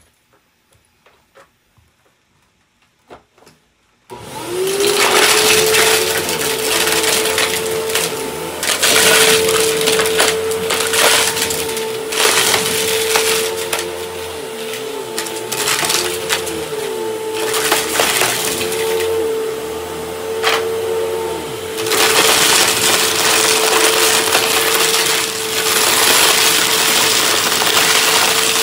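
Upright vacuum cleaner switched on about four seconds in, its motor spinning up to a steady high hum and running loud, with scattered clicks and rattles through it.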